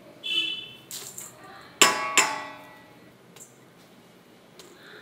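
Stainless steel bowl clanging as spoonfuls of ground spices are tapped into it: a short ring just after the start, then two sharp ringing strikes about two seconds in that fade over a second, and a few light taps later.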